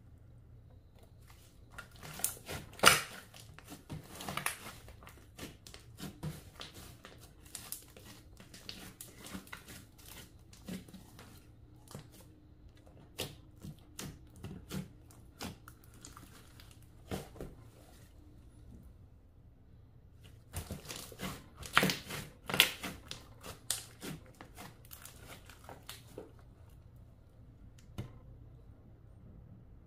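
Clear slime being worked by hand, making irregular crackling clicks and pops, with two busier flurries.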